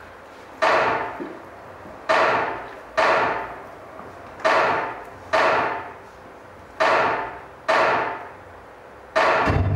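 Heavy drum strokes, each ringing out, in a slow, even long-short rhythm of about eight hits. Near the end the full music comes in with a deep low rumble.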